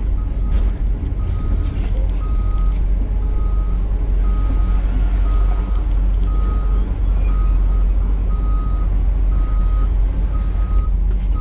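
Excavator's diesel engine running with a steady low rumble while its travel alarm beeps evenly, about three beeps every two seconds, as the machine tracks.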